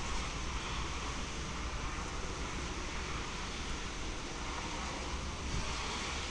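Typhoon wind blowing steadily, with low buffeting of the wind on the microphone.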